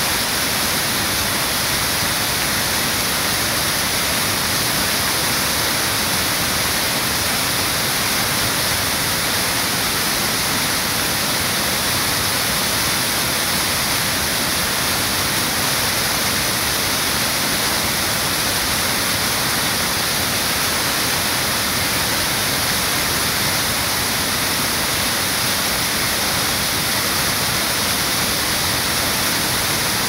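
Waterfall water cascading and splashing over rocks as whitewater, a steady, even rushing that does not change.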